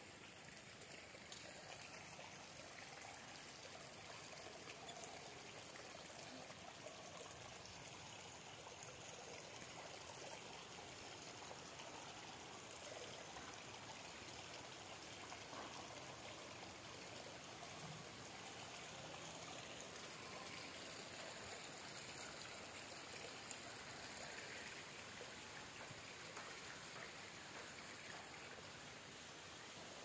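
Faint, steady rushing noise with no distinct events.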